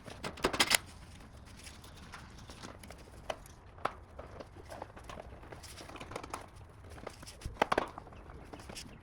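Irregular sharp clicks and knocks of hand tools and loosened nuts and plastic parts being handled while the fasteners on a motorcycle's bodywork are unscrewed. There is a quick cluster of clicks near the start, single knocks about three and four seconds in, and another cluster near the end.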